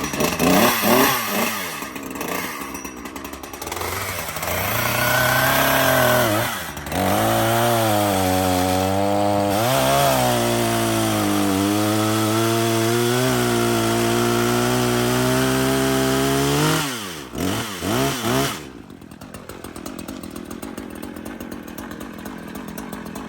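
Echo CS-3410 chainsaw's two-stroke engine, just cold-started, being revved: the throttle is opened and closed a few times, then held high for about ten seconds with the pitch wavering slightly. After a few quick blips near the end it drops back to a quieter idle.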